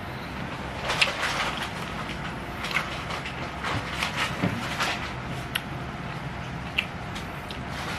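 A person eating nasi padang: irregular wet clicks and smacks of chewing and mouth sounds, over a low steady hum.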